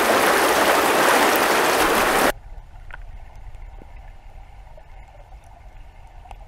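Flowing river water close to the microphone, an even rushing noise that cuts off abruptly about two seconds in. It gives way to the much quieter, muffled sound of a camera held underwater in the river, a low rumble with a few faint ticks.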